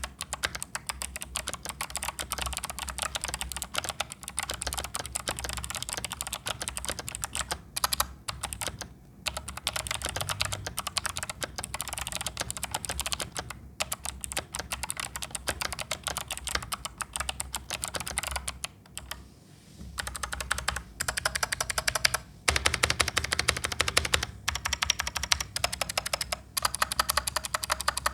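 Typing on a Sades Ryunix XO-723 mechanical keyboard with Kailh Box White clicky switches, in stock condition: fast, continuous key clicks with a few brief pauses, and a faster, louder run about two-thirds of the way through.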